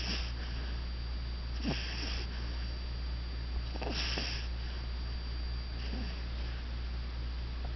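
Puggle puppy snoring as she sleeps on her back: a raspy, hissing breath about every two seconds, four in all, some with a short falling tone.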